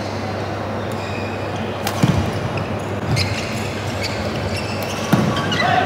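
Badminton rally sounds on an indoor wooden court: two sharp smacks with a low thump, about three seconds apart, and a few short high squeaks, over a steady hum of hall noise.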